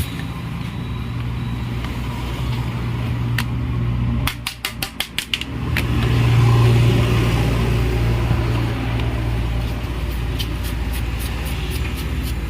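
An electric motor running steadily with a low mains hum. It cuts out for about a second and a half, with a few clicks, about four seconds in, then starts again and runs on.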